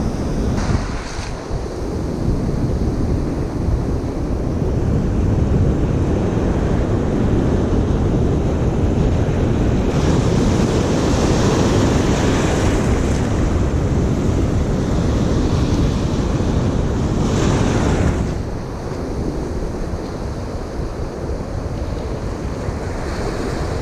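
Ocean surf breaking and washing up the beach, with wind buffeting the microphone. The rush swells a couple of seconds in, holds loud, then eases off after about eighteen seconds.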